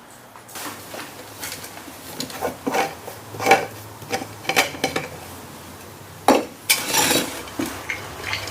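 Metal pieces clinking and clattering as they are handled, in short irregular strikes with a denser clatter about seven seconds in, over a faint steady low hum.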